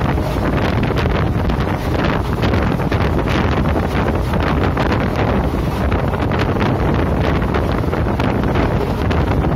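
Wind buffeting the microphone of a phone held out of a moving passenger train, over the train's steady running noise on the track.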